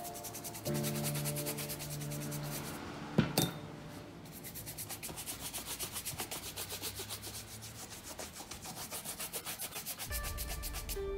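Shoe brush scrubbed back and forth over a leather shoe's welt and upper in quick, rhythmic strokes, several a second, with one sharp knock about three seconds in.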